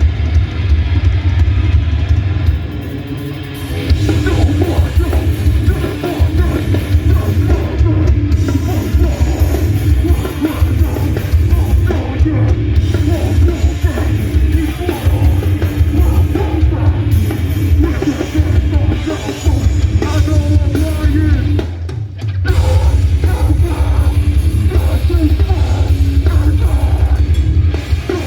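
Metallic hardcore band playing live at full volume: distorted guitars, heavy bass and pounding drums. The music briefly drops out about three-quarters of the way through before the band crashes back in.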